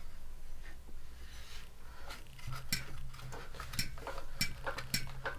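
Lifan 168 single-cylinder engine running with a low steady hum, overlaid by irregular sharp metallic clicks from the crankcase ventilation valve on the valve cover, a sound as if something is catching inside. It is a harmless valve sound, not an engine fault, though it can be mistaken for a knock.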